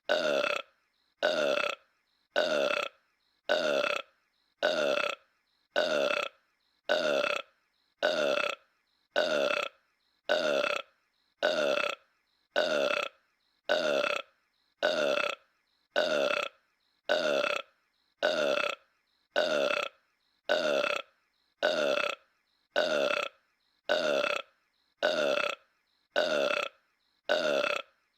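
A single cartoon burp by King Homer (Homer Simpson), looped: the same short, deep burp repeats about every 1.3 seconds with silence in between, each one dropping in pitch as it goes.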